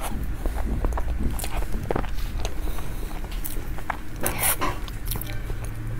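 Close-up eating sounds of a woman chewing spoonfuls of cream-topped chocolate cake: soft wet mouth noises and scattered short clicks, with one louder noisy burst about four and a half seconds in.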